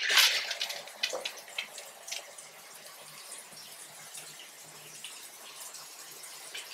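Handheld shower head spraying water into a bathtub. The spray is loudest in the first second or so, then fades to a faint steady hiss with a few splashes.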